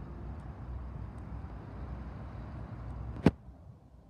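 Low steady rumble of idling BNSF diesel locomotives. About three seconds in, a single sharp knock cuts in, and after it the rumble is much quieter.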